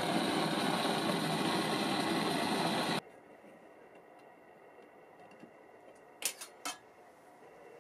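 Blowtorch flame hissing steadily as it heats a brass branding iron, cutting off suddenly about three seconds in. Then a quiet room with three quick clicks near the end.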